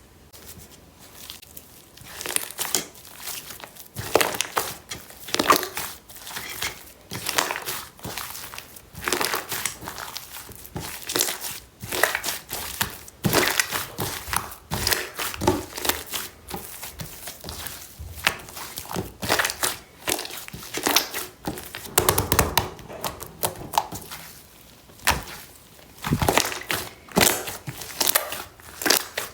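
Slime being squeezed and pressed by hand, making noisy squishing sounds in repeated bursts about once a second, starting about two seconds in.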